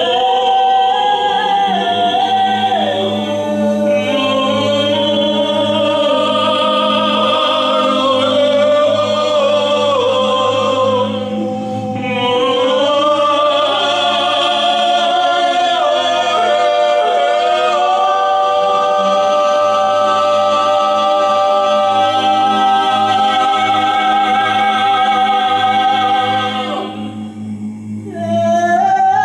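Three voices, men and a woman, improvising wordless a cappella singing in harmony: long held notes that glide slowly between pitches over a steady low drone. The voices thin out briefly just after 11 s and again around 27 s, before swelling back.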